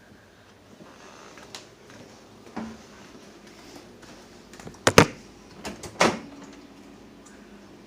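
Microwave oven door clunking as it is opened and shut: a light knock, then a loud sharp double clunk about five seconds in, and another clunk a second later.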